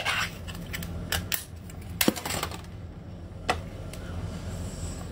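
Ring-pull metal lid being peeled off a clear can: a handful of sharp metallic clicks and cracks, the loudest just after two seconds in.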